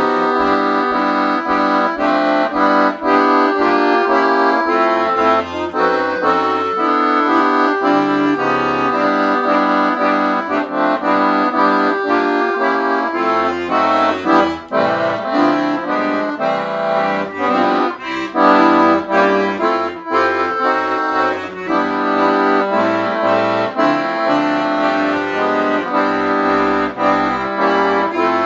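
Piano accordion played solo: a flowing melody of held notes on the treble keyboard over changing bass notes and chords.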